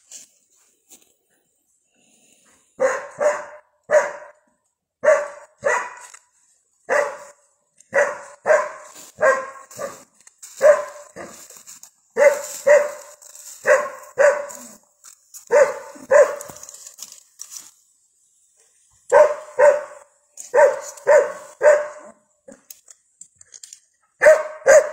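Cadaver search dog barking over and over, mostly in ones and twos about a second apart, with a short break near the end. This is its alert where it has picked up a scent.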